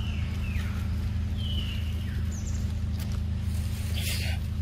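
Forest ambience over a steady low hum: a few short, high chirping calls that slide down in pitch, two of them in the first two seconds and a higher one soon after, and a brief hiss near the end.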